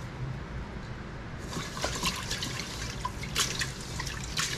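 Hands swishing and rubbing rice in a pot of water to wash it, with water sloshing and splashing. It is quieter for the first second or so, then comes a run of short splashes.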